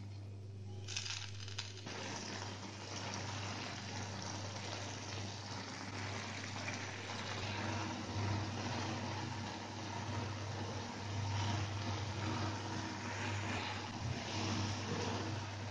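Water and drumstick leaves sizzling and bubbling in a hot kadai as the added water heats toward a simmer, starting about a second in, over a steady low hum.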